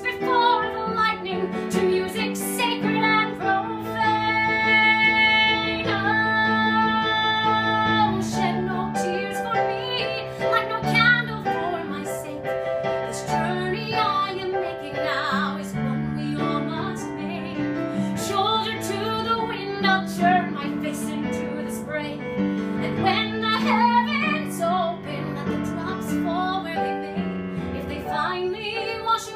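A woman singing a musical-theatre ballad over instrumental accompaniment, with a long held, wavering note about four seconds in.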